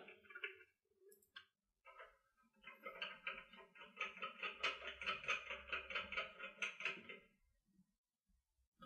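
Faint rhythmic squeaking as the thread of a microscope objective is screwed into the nosepiece turret of an inverted microscope, a few strokes a second, stopping about seven seconds in. It follows a few light clicks of handling.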